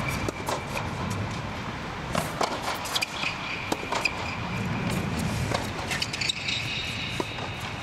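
Tennis ball struck back and forth by rackets and bouncing on a hard court during a rally, a series of sharp hits and bounces over a steady low rumble.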